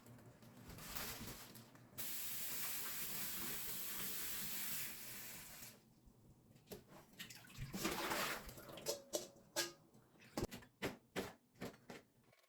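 Kitchen tap running into a sink for about four seconds, steady once fully on, then turned off. After a short splash come a series of light knocks and clatter.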